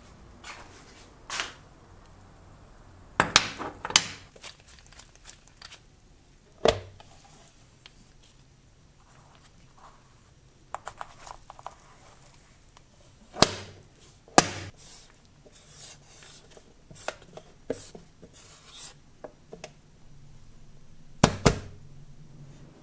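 A metal airbrush and its plastic case handled by gloved hands: scattered sharp clicks and knocks, several clustered together a few seconds apart, with soft handling noise between.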